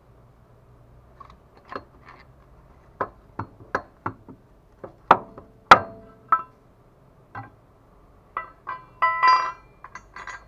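Irregular metal clicks and knocks as the unbolted lower engine mount bracket is worked loose and lifted out by hand, the loudest knocks about five to six seconds in, and a short ringing metal clink about a second before the end.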